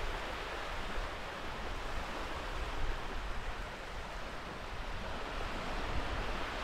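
Ocean surf washing on a beach: a steady, even rushing noise with no distinct events.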